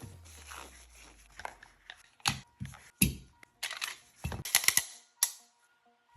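Irregular sharp clicks and knocks, with short scraping noises between them.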